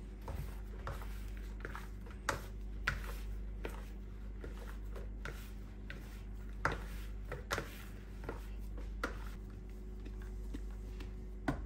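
Hands mixing and pressing crumbly shortcrust pastry dough together in a plastic mixing bowl: soft, irregular scrapes and knocks against the bowl over a low steady hum.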